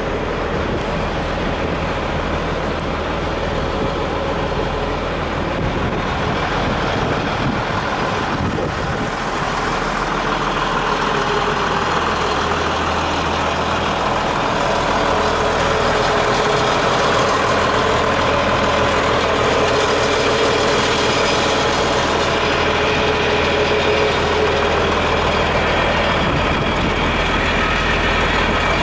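Renault Midliner M180 fire truck's diesel engine idling steadily, a little louder from about halfway through.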